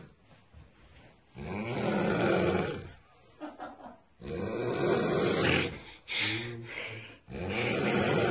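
A young woman snoring loudly: three long snores about three seconds apart, with quieter breaths between them.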